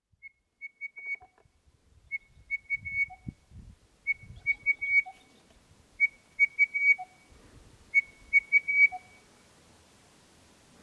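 Male crested bellbird singing: five phrases about two seconds apart, each a quick run of four or five short, clear whistled notes on one pitch followed by a single lower note.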